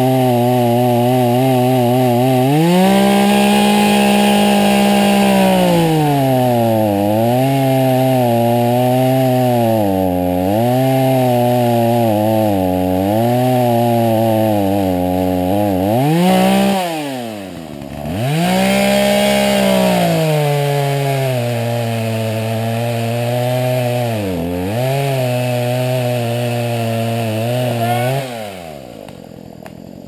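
Gas chainsaw cutting into a standing tree trunk. The engine runs at high revs, its pitch sagging and recovering again and again as the chain bogs in the wood. About halfway through it drops briefly to a low idle and revs back up, and near the end it winds down.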